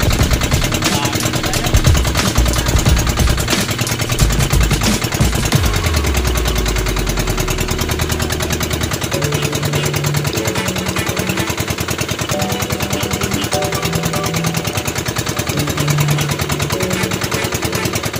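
Boat engine running with a rapid, even knocking beat.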